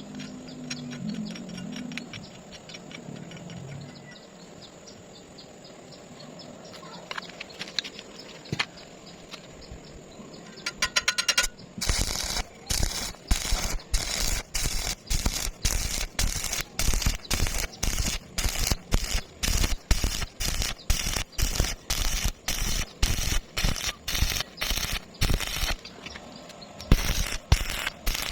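Stick welding arc crackling in short, regular bursts about twice a second, starting about twelve seconds in. Before that there is only a faint hum and a few scattered clicks.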